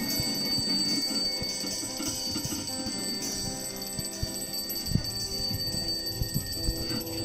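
Live band playing a droning experimental passage on amplified guitars and electronics: several held tones, a high steady ringing and scattered clicks and knocks, the loudest knock about five seconds in.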